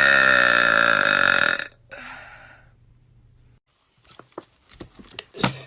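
A person's long, loud burp with a wavering pitch, ending about a second and a half in. A brief softer breath of air follows, then a pause with a few faint clicks near the end.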